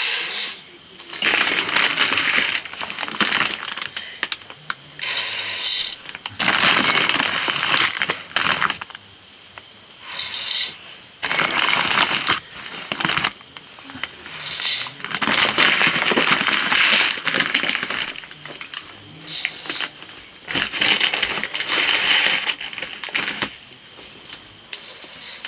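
Rice grains rattling and scraping against a metal vessel, with a short bright hissing rush about every five seconds.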